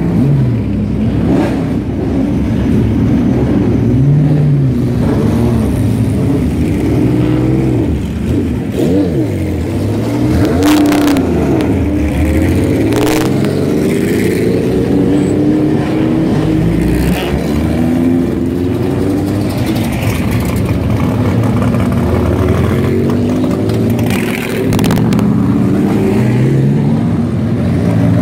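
Several vintage race car engines running at low speed as the cars roll out one after another, revved now and then so the pitch keeps rising and falling, with a few short sharp blips among them.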